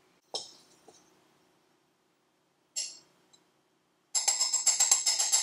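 A few light clinks and a short scrape of a metal spoon against a glass champagne flute. About four seconds in, louder music with a fast jangling, tambourine-like beat starts and carries on.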